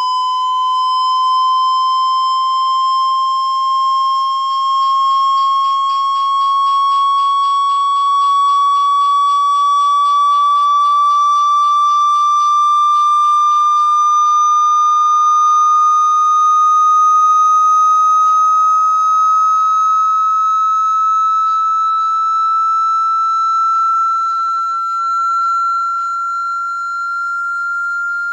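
Water-eject tone: a single loud electronic sine tone held steady and gliding slowly up in pitch, played to vibrate a phone's speaker and drive water out of it.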